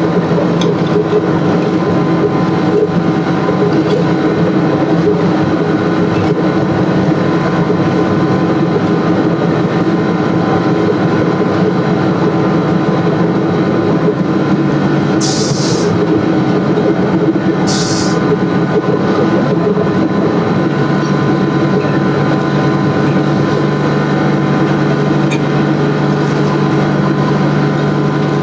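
Machinery running with a loud, steady drone, broken by two short hisses about halfway through. The hum shifts slightly in pitch about three-quarters of the way through.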